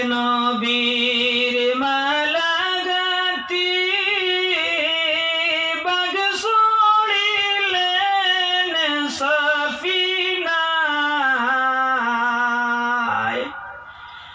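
A man's high voice singing unaccompanied devotional chant into a microphone, in long held notes that bend and rise in pitch. The voice glides down and breaks off briefly near the end.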